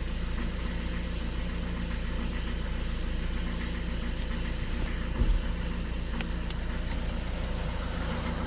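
Skoda Octavia A7's 1.6 TDI four-cylinder diesel idling cold, running rough with a knock and shaking, which the owner puts down to the cold engine and likens to one cylinder being cut out, with injector correction problems. A brief louder thump about five seconds in.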